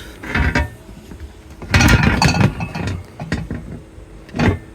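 A metal bash plate clanking and scraping against the underside of a Suzuki Jimny as it is slid through the gap, in uneven knocks with a louder clatter about two seconds in.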